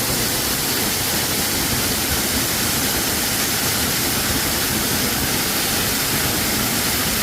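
Water rushing steadily over rock, an even unbroken hiss and roar of a waterfall.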